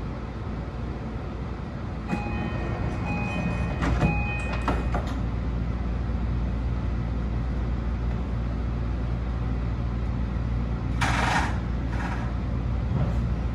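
BEC819-series DENCHA battery-electric train heard from the cab, a steady low rumble of running on the rails. About two seconds in, a few seconds of steady tones come with some clicks. Near the end there are two short hisses about a second apart.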